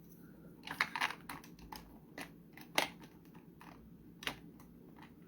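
Plastic makeup containers clicking and clattering as they are handled, a quick irregular run of small knocks with one sharper click in the middle.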